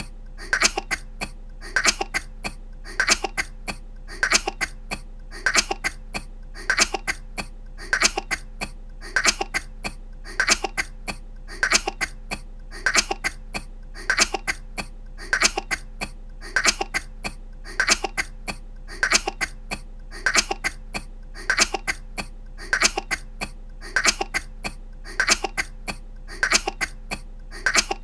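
A young woman's short little coughs, the same burst of a few coughs repeated as a loop about every second and a quarter, over a low steady hum.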